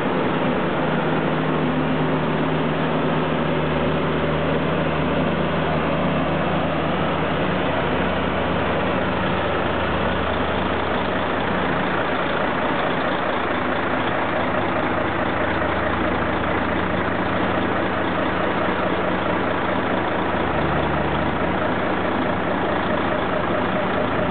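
A heavy vehicle engine running steadily, with dense mechanical noise over it; the low engine note shifts briefly about three quarters of the way through.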